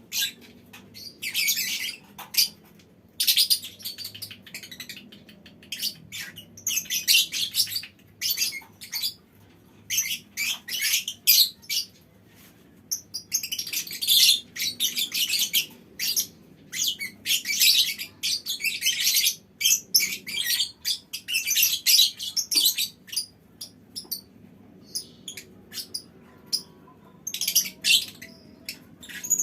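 A colony of lovebirds chattering: shrill, rapid high-pitched calls coming in bouts of a second or two, separated by short pauses.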